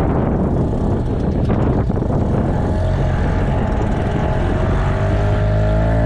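Strong wind buffeting the microphone with a loud low rumble. About five seconds in, a steady droning music track fades in.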